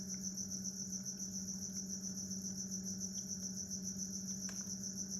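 Crickets chirping in a fast, even, continuous trill, with a steady low hum underneath.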